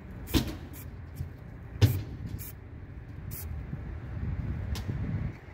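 Aerosol spray can of black paint spraying in several short bursts, laying a base coat on small metal parts. A low rumble runs underneath, swelling near the end.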